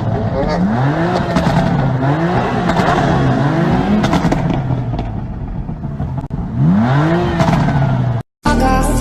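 BMW car engine being revved hard, its pitch rising and falling again and again in quick sweeps, with a constant rush of noise under it, as in drifting or a burnout. It cuts off abruptly near the end, and music begins.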